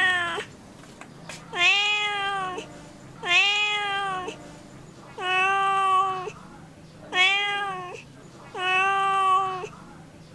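Domestic cat meowing over and over: five long, even-pitched meows of about a second each, spaced roughly a second and a half to two seconds apart, with the tail of another at the very start.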